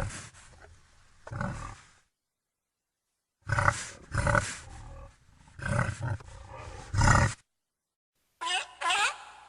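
A big cat roaring in a series of short, loud calls, with a silent gap between groups. Near the end a different animal starts a run of high, falling squeaks.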